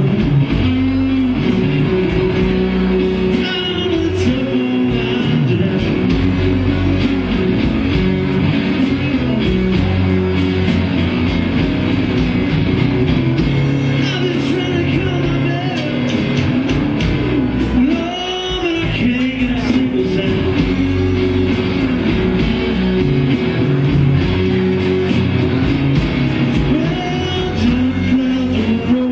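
Live blues band playing a slow blues: electric guitar, bass, drums and keyboard, with a harmonica played over the band.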